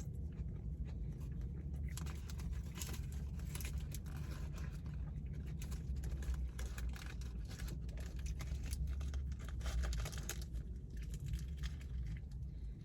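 Close-up chewing of a grilled chicken sandwich: many small wet clicks and mouth smacks over a steady low hum.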